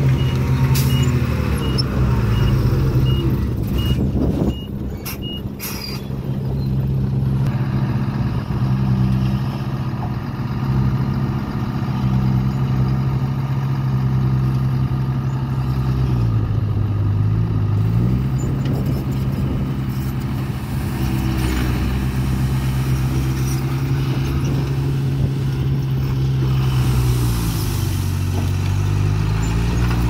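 Dump truck's diesel engine running steadily under load as it backs through soft dirt and raises its bed to tip the load. A reversing beeper beeps in the first few seconds. The engine note drops and climbs back twice, about halfway through and near the end.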